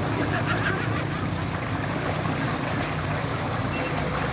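Wind buffeting the microphone: a steady, fluttering low rumble with a rushing hiss above it.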